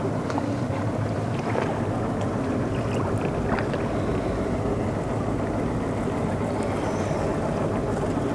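Motorboat engine running steadily at sea, with wind on the microphone.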